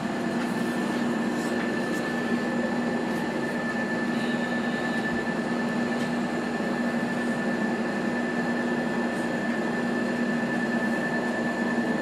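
Steady background hum and hiss with a constant low tone and a constant high whine, unchanging throughout.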